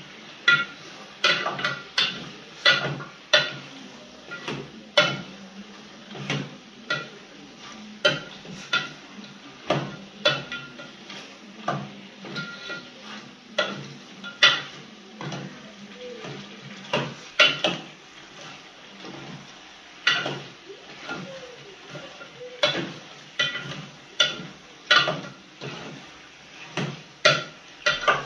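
A metal spoon stirring chicken pieces in an aluminium cooking pot. It clanks and scrapes against the pot's sides and bottom in irregular strikes, about one to two a second, each with a short metallic ring.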